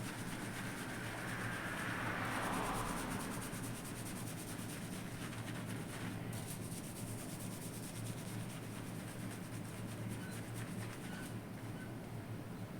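Fingers scrubbing a shampoo lather through hair and over the scalp: a steady rubbing, swelling a little about two seconds in.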